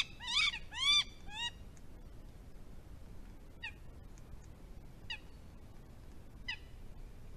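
Northern goshawk courtship calls: three loud, short, arching notes in quick succession in the first second and a half, then fainter single notes about every second and a half.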